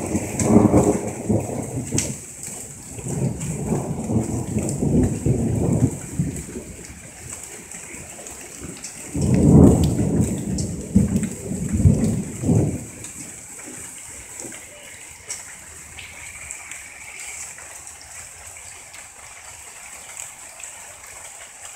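Heavy thunderstorm: three long rolls of thunder, the loudest about nine seconds in, over steady heavy rain. The thunder dies away after about thirteen seconds, leaving the rain.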